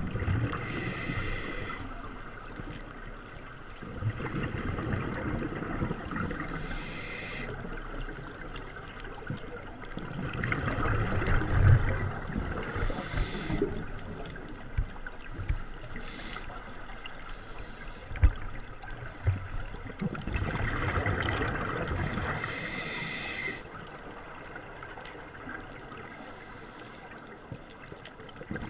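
Scuba diver breathing through a regulator underwater. Short hissing inhalations, several in all, alternate with longer rushes of exhaled bubbles.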